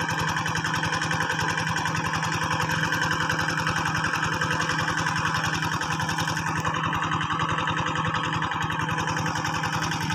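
A small engine running steadily, with a fast, even pulsing beat that does not change.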